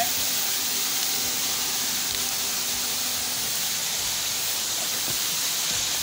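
Waterfall rushing steadily, a constant hiss of falling water.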